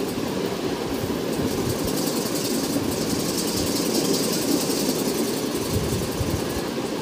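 Oil sizzling and crackling steadily under chana-dal-and-meat kebab patties shallow-frying on a flat iron tawa.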